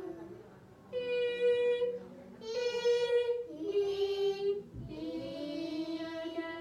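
Children singing a vocal warm-up exercise: four separate held notes of about a second each, with short gaps between, the last two lower in pitch.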